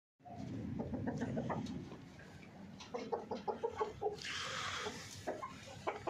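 Chickens clucking in a wire-mesh coop, with a quick run of short clucks around the middle. A brief rustling noise comes about four seconds in.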